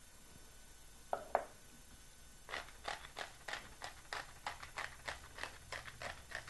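Hand-turned pepper mill grinding peppercorns, a regular run of crunchy clicks about four a second starting a couple of seconds in. A brief clatter comes about a second in.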